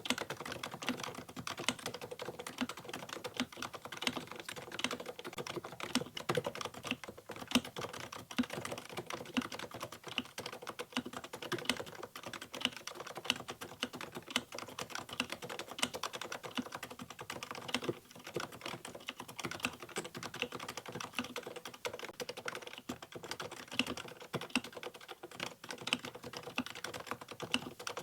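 Realforce x Ducky R1 keyboard with 45 g Topre switches fitted with purple silent sliders, typed on steadily: a dense, continuous run of keystrokes, several a second.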